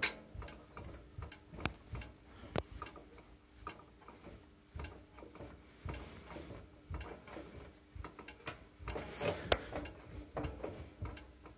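Scattered light clicks and knocks, irregularly spaced, from metal parts of a walk-behind tractor and its snowblower attachment being handled around the hitch and belt drive, with the engine off.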